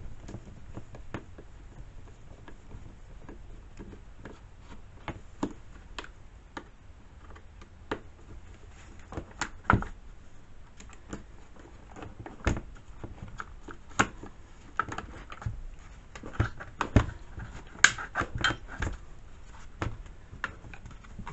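Scattered clicks, taps and clatter of hand tools against the hard plastic housing as the top cover of a Craftsman S205 chainsaw is unscrewed and worked off. The knocks come closer together near the end.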